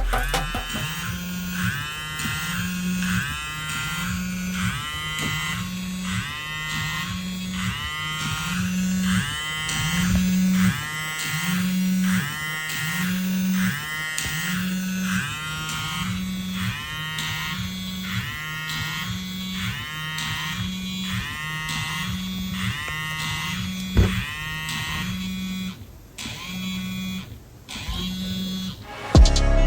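Samsung Galaxy Ace smartphone ringing for an incoming SkyPhone app call. A short gliding ringtone phrase repeats a little more than once a second over the phone's vibration motor, which buzzes in matching pulses. The ringing thins out near the end and stops.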